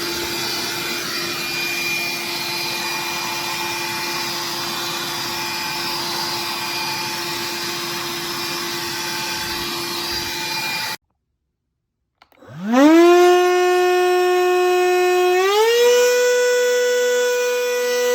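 Cordless handheld vacuum running steadily with a constant hum until it cuts off. After a second of silence, a vacuum motor spins up with a rising whine, holds its pitch, then steps up to a higher whine about three seconds later.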